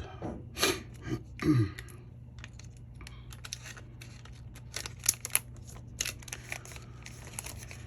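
Light clicks and taps of small tools and parts being handled on an iPhone 12 Pro Max under repair, coming thickest in the second half, over a steady low hum.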